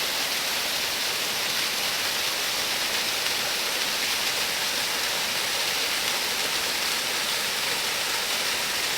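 Small waterfall: a steady rush of falling water, even and unbroken.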